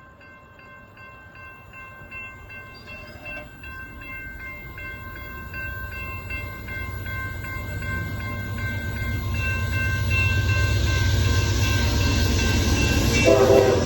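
Grade-crossing warning bell ringing in steady repeated strokes while an approaching Amtrak passenger train's low rumble grows steadily louder. The locomotive's horn starts to sound near the end.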